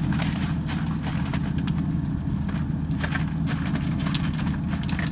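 Boat engine running steadily with a low, even drone. Scattered light clicks and ticks sound over it.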